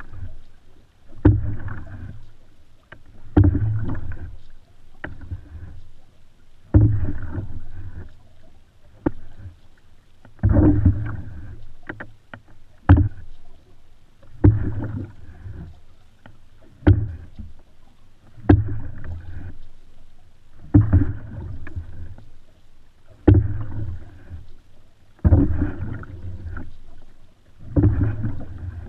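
Open canoe being paddled: each stroke gives a sharp knock followed by a rush of water, repeating about every two seconds.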